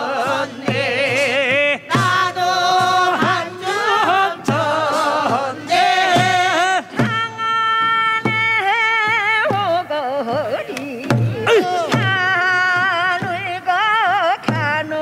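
Korean farming folk song (nongyo) sung with a wavering, ornamented voice, over regular strokes of traditional drums: janggu hourglass drums and a buk barrel drum.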